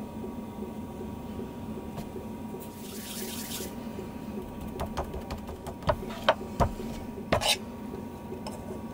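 Hands making pierogi: a soft rustle of dough, then a handful of sharp knocks and clinks of a metal spoon against a frying pan of filling, over a steady low hum.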